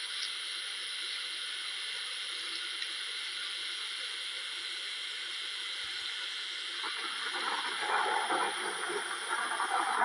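Steady hiss of heavy rain, growing louder and rougher about seven seconds in.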